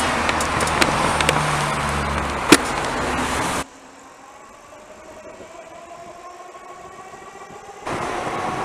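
Street traffic: a city bus's engine running close by, with road noise, for the first three and a half seconds. Then it cuts abruptly to quieter traffic with a faint rising engine tone, getting louder again near the end.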